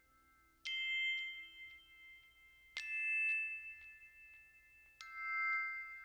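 Music: three struck, bell-like chime tones about two seconds apart, each left ringing.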